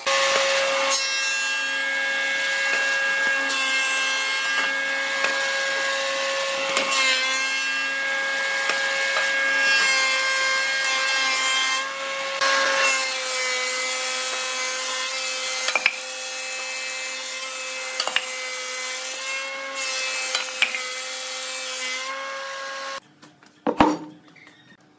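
Thickness planer running and cutting wood: a steady high whine over a hissing cut. Its pitch dips briefly a few times as it takes the load, and it cuts off suddenly near the end, followed by a single knock of wood on wood.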